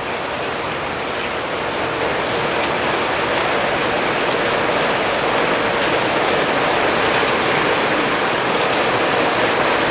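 Steady rain falling, an even dense hiss of drops that grows a little louder about two seconds in.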